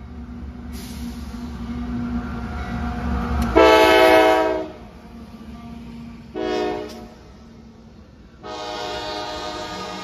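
Approaching CSX diesel freight locomotive, its engine rumble building, then its air horn sounding a loud blast of about a second, a short blast, and a long blast starting near the end, while the freight cars roll past on the rails.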